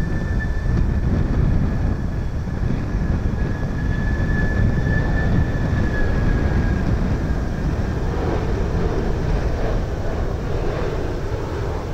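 Japan Airlines Boeing 767 on final approach with gear down, its jet engines giving a steady low rumble. A thin high whine runs over the rumble and fades out about two-thirds of the way through.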